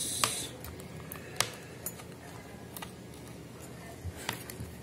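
Stainless steel manicure tools clicking and tapping as they are handled and pulled from the loops of their case: a handful of scattered small clicks, two close together near the end.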